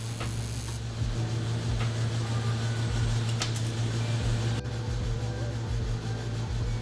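TIG welding on steel brackets: the arc hisses for about the first second, then stops, leaving the welder's steady low electrical hum with a few light clicks.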